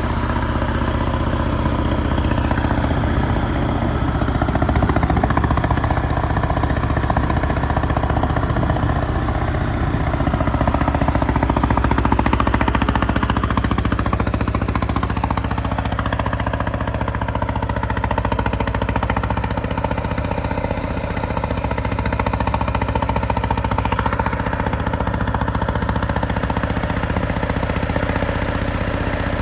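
Detroit Diesel 6V92TA two-stroke turbocharged V6 diesel in an FTF logging truck running steadily, swelling slightly in loudness twice.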